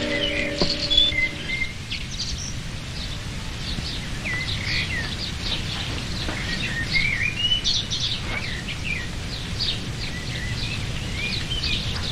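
Songbirds chirping and singing in many short calls over a steady low background rumble; a few held music notes die away in the first second or so.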